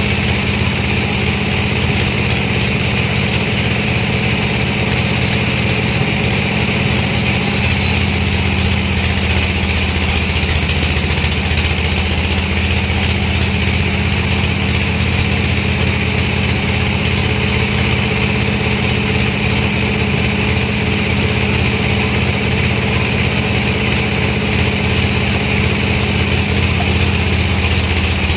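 Sawmill machinery running steadily, a continuous engine-like drone with a low hum and no break or change in level.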